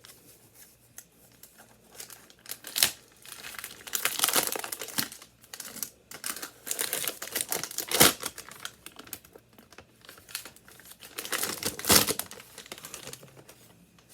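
Packaging crinkling and tearing as a package is opened by hand, in irregular bursts of rustling with a few sharp snaps, starting a few seconds in.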